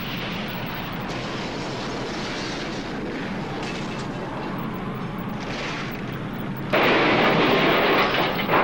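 Film sound effect of a nuclear blast wave: a steady rushing, rumbling noise of wind and debris. About two-thirds of the way through it suddenly becomes much louder and holds.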